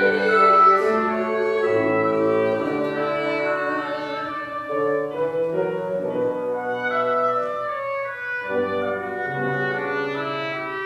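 A clarinet and a bassoon playing a slow classical duet, the clarinet's line moving above the bassoon's lower part, in the instrumental passage of a soprano aria.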